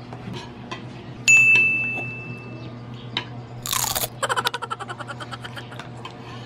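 A single bright ding about a second in that rings and fades, then a short rustle and a quick run of crackles, over a steady low hum.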